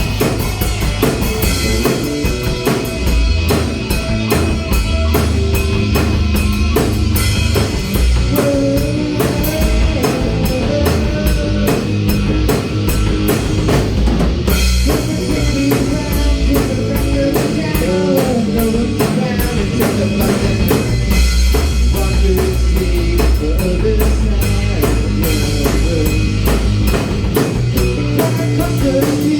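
Rock band playing: drum kit keeping a steady beat under electric guitar and bass, with a brief break about halfway through.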